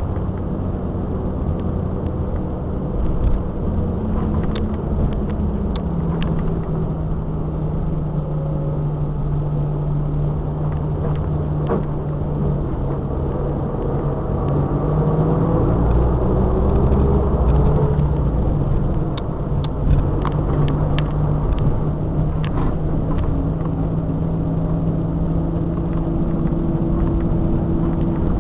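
Scania K94 IB bus diesel engine running under way, heard from inside the cabin, its note shifting as the bus speeds up and changes gear, with a rise in pitch about halfway through. Scattered clicks and rattles are heard over it.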